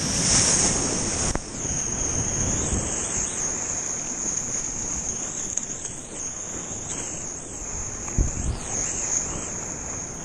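Surf breaking and whitewater rushing around a kayak paddled in through the shore break, loudest as a wave breaks in the first second or so, with a low thud about eight seconds in. A steady high-pitched whine runs underneath.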